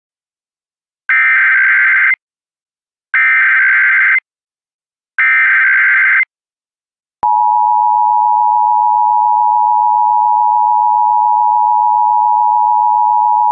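Emergency Alert System broadcast: three one-second bursts of screechy SAME header data, about two seconds apart, then the steady two-tone EAS attention signal begins about seven seconds in.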